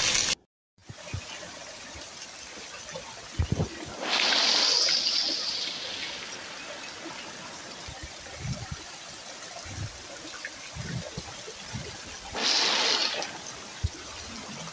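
Heavy rain pouring down, a steady hiss that swells louder twice, at about 4 seconds and again at about 12 seconds in, with occasional low thumps. The sound drops out for a moment just after the start.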